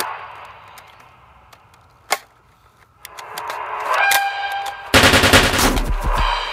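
Rapid machine-gun fire sound effect, a dense burst of shots starting about five seconds in and running on. Before it, music fades out, then a single sharp click and a rising swell.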